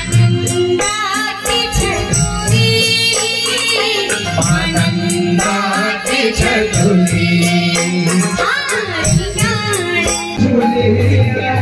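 Pahari (Uttarakhandi) folk devotional music: singing over drums and percussion keeping a steady, rhythmic beat.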